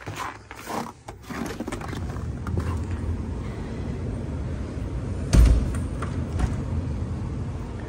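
Handling noise from a handheld camera being carried through a room: a steady low rumble, with a dull thump about five and a half seconds in and a lighter one a second later.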